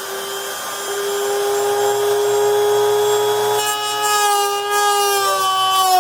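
Dremel rotary tool with a cutoff wheel cutting through a body-kit side skirt, a steady high whine. About halfway through the sound grows harsher and the pitch sags slowly as the wheel loads up in the cut.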